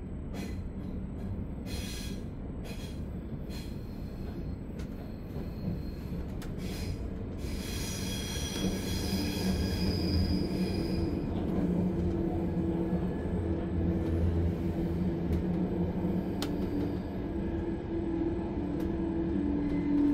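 Inside a Zürich S-Bahn double-deck DPZ coach on the move: steady rumble of wheels on rail with a few clicks over the track early on. The wheels squeal for a few seconds near the middle. A low hum grows stronger and the sound gets louder toward the end.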